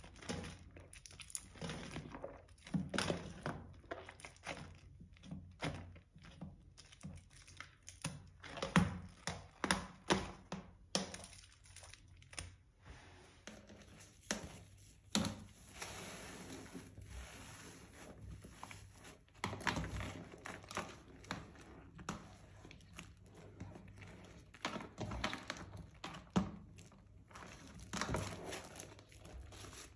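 Hands squeezing and kneading soaked, mushy Palmolive bar soap in a tub of soapy water, then pressing black foam sponges into the soap paste. The result is irregular wet squelches with crackling foam.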